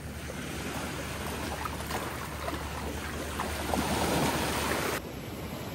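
Steady rushing wind and ocean-surf noise. It swells about four seconds in, then drops abruptly to a quieter rush about a second before the end.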